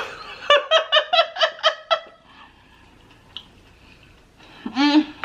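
A woman laughing: a quick run of about seven high-pitched "ha"s, followed near the end by a short vocal sound.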